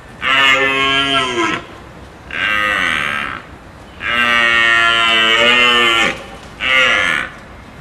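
Cattle mooing: four calls, the third a long one of about two seconds and the last a short one near the end.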